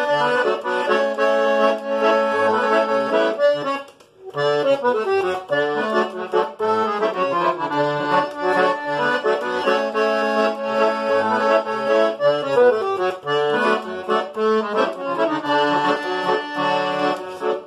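Accordion (gaita) playing an instrumental passage of a gaúcho-style tune: a melody over a steady pulse of bass notes, with a brief break about four seconds in.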